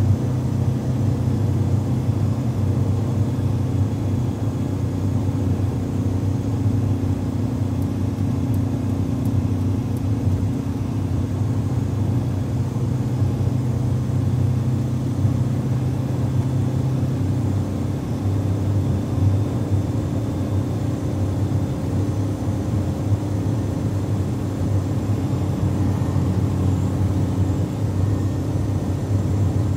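Inside the cabin of a 1980 Ford Fiesta with its 1300cc four-cylinder engine, cruising at a constant motorway speed: a steady low drone. The engine note shifts slightly a little past halfway.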